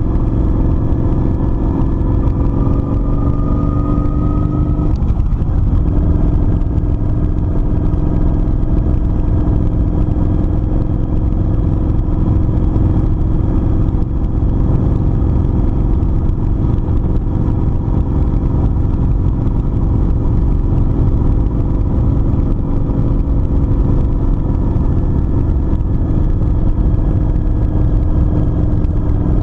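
Kawasaki Vulcan 900 V-twin cruiser motorcycle engine running under way, its pitch climbing gently for the first few seconds, changing briefly about five seconds in, then holding steady at cruising speed over a heavy low rumble.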